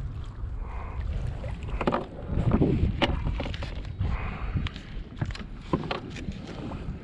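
A hooked triggerfish splashing at the surface and being swung aboard a plastic fishing kayak, with scattered knocks and clicks of handling. It is loudest about two and a half seconds in. Wind buffets the microphone throughout.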